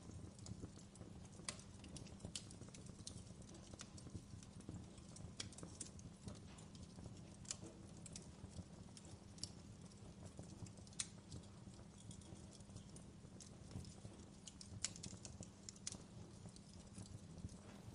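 Wood fire crackling faintly: irregular sharp pops and snaps over a low, steady rumble.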